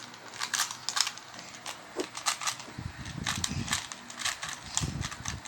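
Rubik's cube being turned quickly by hand: rapid, irregular plastic clicks and clacks as the layers snap round, with some duller handling noise.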